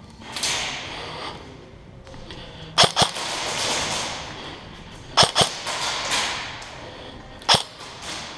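Airsoft gun firing: five sharp cracks, in two quick pairs a couple of seconds apart and a single crack near the end, with swishing noise between them.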